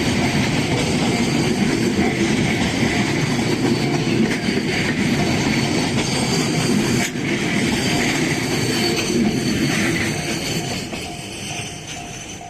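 A train on the Ishinomaki Line running past a level crossing with a loud, steady rumble of wheels on rail. The noise dies away over the last couple of seconds as the train moves off, and a crossing warning bell rings in repeated dings near the end.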